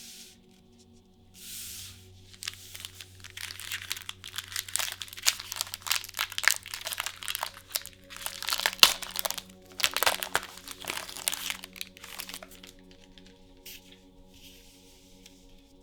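Foil trading-card booster-pack wrapper being torn open and crinkled: a dense run of crackling with many sharp clicks for about ten seconds, after two soft swishes of packaging sliding, fading to quieter rubbing near the end.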